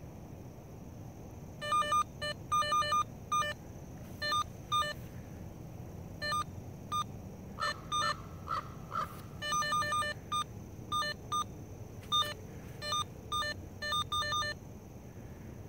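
Handheld cable-locator receiver beeping in short, irregular clusters of electronic beeps as it is swept over the ground, sounding off as it picks up the signal on the buried cable, with one longer tone about eight seconds in.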